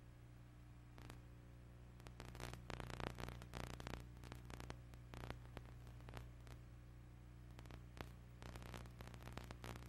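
Faint steady electrical hum with scattered crackles and clicks, heaviest a few seconds in and again near the end: the noise floor of an old game-film transfer with no soundtrack.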